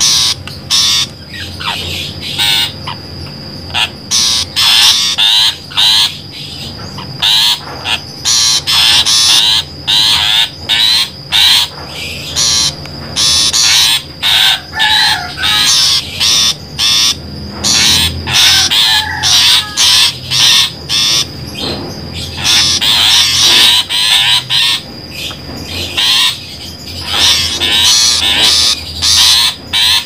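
Long-tailed shrike (pentet) calls from a bird-trapping lure recording: loud, harsh call notes in many short bursts with brief gaps, and some quick warbling phrases between them.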